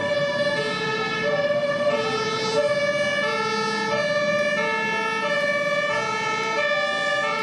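Two-tone emergency-vehicle siren, stepping steadily back and forth between a higher and a lower note.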